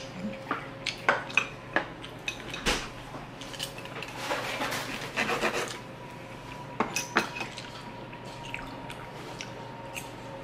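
Metal cutlery clinking on dishes, then a knife sawing through steak against a wooden board, a dense scraping stretch about four to six seconds in, followed by a few more clinks.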